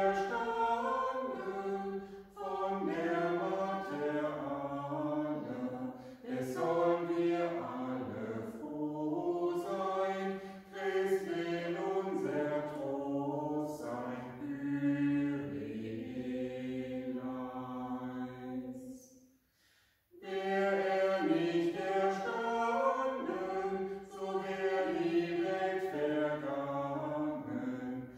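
Small mixed vocal quartet, three women and a man, singing a cappella in several-part harmony, phrase after phrase with short breaths between them and a brief pause about two-thirds of the way through.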